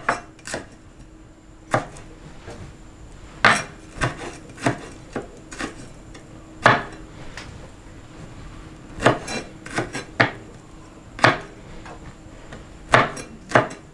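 Cleaver chopping shallots, garlic and chillies on a wooden cutting board: sharp single knocks of the blade on the board, irregularly spaced, some in quick runs of three or four with pauses of a second or two between.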